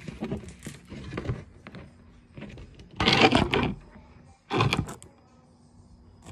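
Handling noise: clicks, taps and rustling close to the phone's microphone, with two louder bursts of rustling about three and four and a half seconds in.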